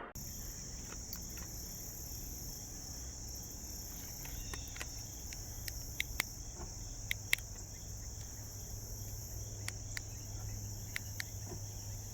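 Steady high chirring of insects, with a low hum and a few sharp clicks scattered through the second half. No lock or unlock beep sounds from the Toyota Tundra: its answer-back chime buzzer has been removed.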